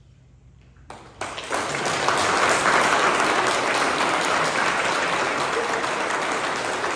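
Audience applause at the end of a choir's song: after a moment of quiet, clapping breaks out about a second in and carries on steadily.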